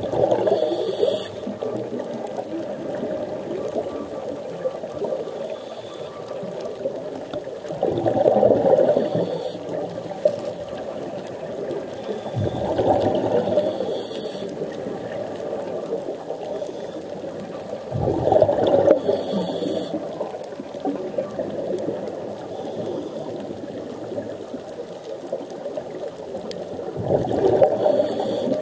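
A scuba diver's regulator breathing, recorded underwater: five rumbling surges of exhaled bubbles about every five to nine seconds, each with a short hiss, over a steady underwater wash.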